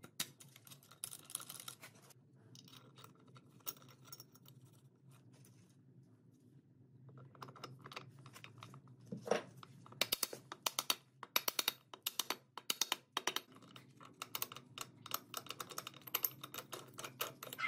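Steel gearbox parts clicking and clinking against each other as gears, synchro rings and a shaft are worked by hand into a UAZ 469 gearbox housing. Scattered clicks at first, then a fast run of light clicks from about ten seconds in, over a low steady hum.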